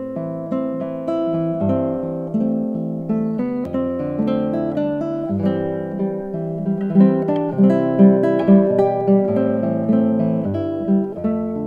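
Acoustic guitar music: plucked notes ringing out over low bass notes, with a run of evenly spaced, stronger plucks in the second half.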